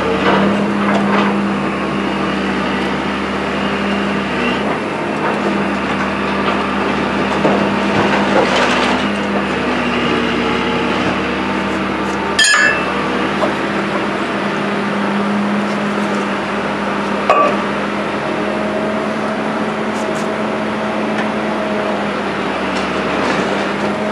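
Hand tools knocking and clinking on the steering knuckle and brake parts of a 2001 Dodge Dakota, over a steady machine hum; two sharp knocks stand out, about 12 seconds in and about 17 seconds in.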